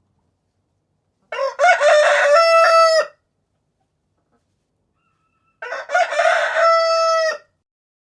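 Rooster crowing twice, each crow about two seconds long and ending on a long held note.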